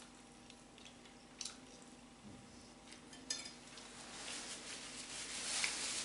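Tableware during a meal: two sharp clicks against a dish, about one and a half and three seconds in. From about four seconds in, a denser crackling noise grows louder toward the end.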